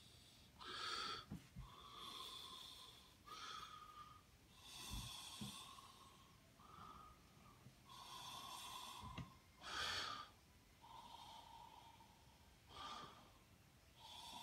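Faint breathing through the nose close to the microphone: soft hissing breaths in and out, one every second or two.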